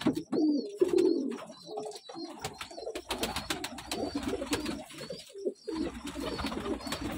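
Pigeons cooing repeatedly in low, wavering calls. About three seconds in, a burst of rapid clicks and rustling rises over the cooing for a second or two.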